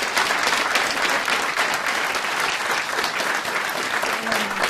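A studio audience applauding: many people clapping, steady throughout and fading slightly near the end.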